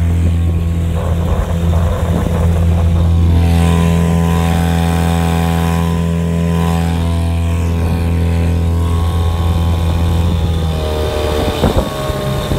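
Small outboard motor on an open boat running steadily at high speed, then throttled back about eleven seconds in, its pitch dropping, with a couple of sharp knocks just after.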